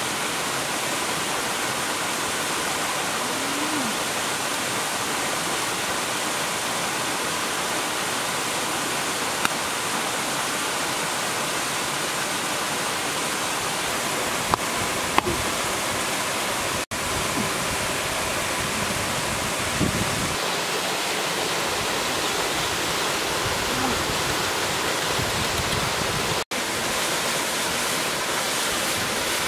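River water rushing steadily: a constant, even roar of flowing water, with a few faint knocks.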